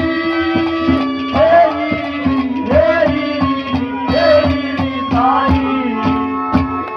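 Haryanvi ragni music: long held notes under a melody line that slides up and down in short phrases, with regular hand-drum strokes about three a second.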